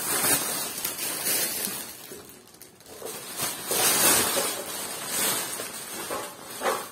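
Thin plastic shopping bags rustling and crinkling as they are rummaged through and pulled open, in uneven bursts with a brief lull about two seconds in.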